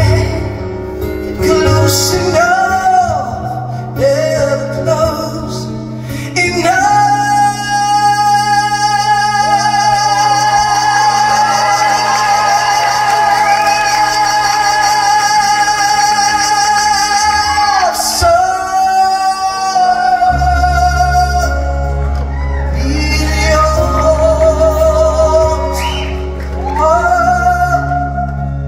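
Live ballad: a male singer with acoustic guitar and band behind him, holding one long high note for about ten seconds in the middle.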